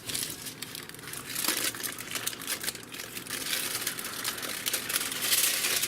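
Continuous crinkling and crackling, as of a plastic or paper wrapping being handled, getting louder toward the end.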